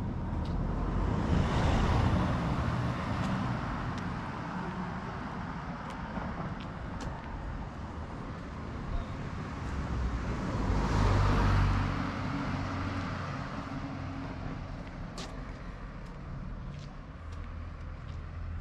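Street traffic: two cars pass one after the other, the first about two seconds in and the second a little past halfway, each swelling and fading over a steady traffic rumble.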